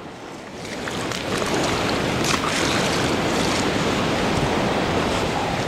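Ocean surf breaking and washing up a beach, swelling about a second in and then steady.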